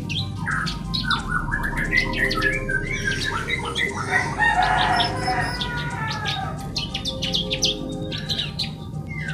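A flock of ciblek kristal (bar-winged prinias) chattering busily in an aviary: many overlapping quick chirps and rapid trills, busiest in the middle. The birds are excited after a feed of mealworms, which the keeper takes for breeding excitement.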